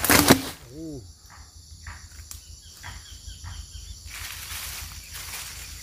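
A cut log dropped onto dry fronds and leaf litter, a sudden heavy thud with crackling debris, followed by rustling footsteps through the dry litter. Insects drone steadily throughout.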